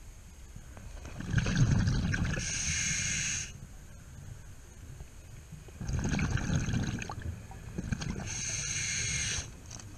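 Scuba diver breathing through a regulator underwater. Twice there is a rumbling burst of exhaled bubbles, each followed by the hiss of an inhale through the regulator, in a slow, even rhythm.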